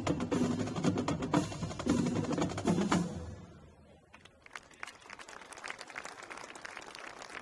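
Marching band drumline of snares, tenor and bass drums playing a cadence with sharp stick clicks, stopping about three seconds in. Faint crowd noise with scattered small clicks follows.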